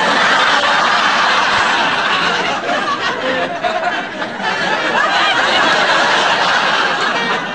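Studio audience laughing loudly, easing off a little near the end.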